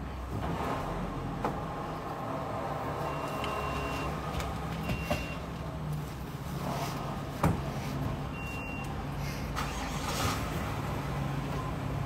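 Steady low hum of a parked vehicle idling, heard inside its cabin, with a few light clicks and rustles and one sharper click about seven seconds in.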